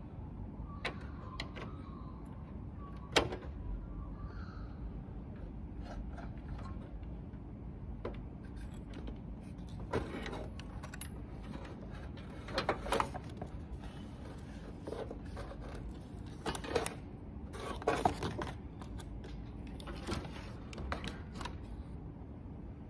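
Scattered light clicks and rattles of wire harnesses and plastic connectors being handled and fitted inside an induction cooktop's open metal chassis, over a steady low hum. The sharpest click comes about three seconds in, with a cluster of clatters around the middle and again near eighteen seconds.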